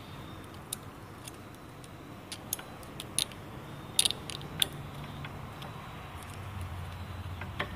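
Small steel pick clicking and scraping against the beveled washer inside a Ford 6.0L diesel fuel injector's top seal bore. It makes a scatter of light metallic ticks, a few of them sharper around the middle, over a faint low hum.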